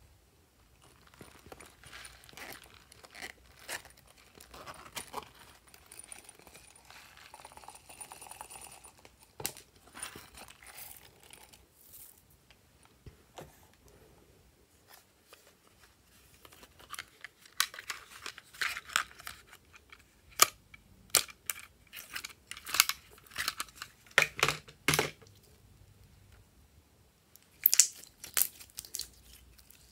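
Soft crinkling rustle for the first ten seconds or so, then glossy slime squeezed and pinched by hand, giving clusters of sharp, sticky clicks and pops that are loudest in the second half.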